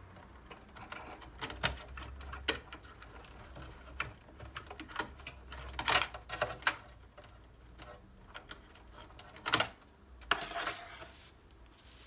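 Plastic clicks and rattles of a power-supply cable connector being unclipped and pulled from a desktop computer's motherboard, with the wires scraping and rustling against the metal case. The sharpest clicks come about halfway through and again a few seconds later.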